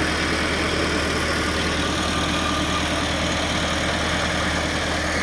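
Tractor diesel engines idling steadily, an even low hum with no change in speed.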